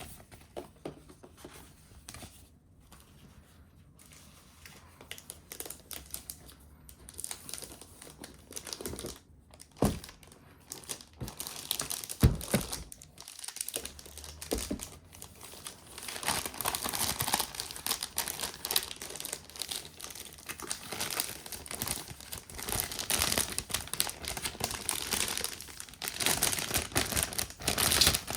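Packaging being handled and unwrapped: a few thumps, then dense crinkling and rustling from about halfway through as the keyboard's wrapping is pulled off.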